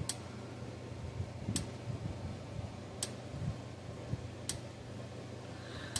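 Parmak Solar Pak 12 electric fence charger pulsing on the bench: a sharp click about every one and a half seconds, one click for each output pulse, showing the charger is firing.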